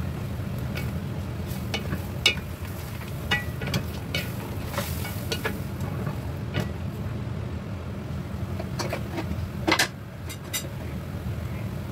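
Wooden spatula stirring pork knuckle pieces and onion in a pot on the stove, with scattered scrapes and knocks against the pot and a light sizzle, the sharpest knock just before the end. A steady low hum runs underneath.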